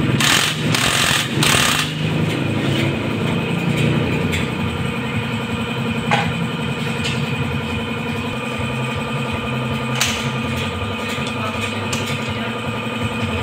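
A steady hum of an engine running in the background throughout. In the first couple of seconds a cordless impact driver rattles briefly on the cylinder-head bolts of a dismantled motorcycle engine.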